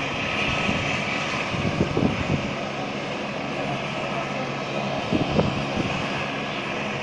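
Indian Air Force helicopter's engines running steadily while it stands on the helipad: an even turbine hum with a hiss above it.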